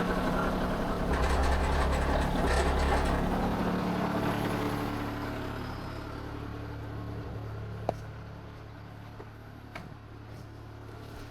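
An engine running steadily. It grows quieter after about five seconds and keeps running at a lower level, with one sharp click a little before eight seconds.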